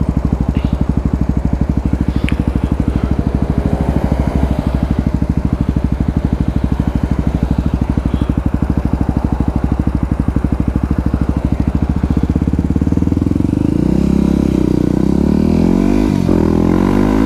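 Motorcycle engine idling with an even, fast pulsing beat. About 13 seconds in it revs up as the bike pulls away, its pitch rising and dropping through gear changes near the end.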